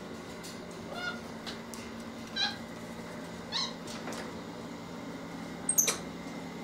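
White-faced capuchin monkey giving short, high squeaky calls, four of them, the last one near the end the highest and loudest.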